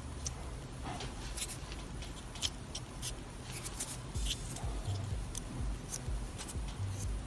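Scattered small, sharp clicks and taps as thin basswood model-kit pieces are handled and fitted together, over quiet background music.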